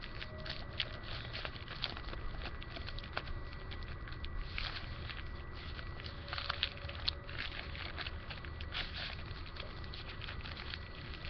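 A sheet of newspaper, rubbed with petroleum jelly, rustling and crinkling as it is rolled up by hand, with an uneven run of small crackles.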